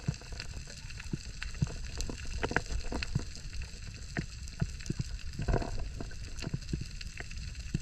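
Underwater ambience: scattered, irregular clicks and knocks over a steady low rumble, with one longer burst about five and a half seconds in.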